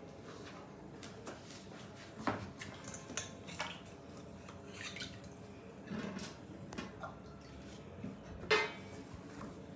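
Scattered light clinks and knocks of kitchenware, dishes and utensils being handled, a second or so apart, the loudest near the end.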